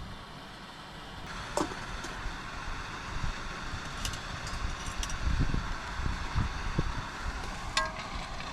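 Strong wind buffeting the microphone in irregular low rumbling gusts over a steady hiss, with a few light clicks and clinks.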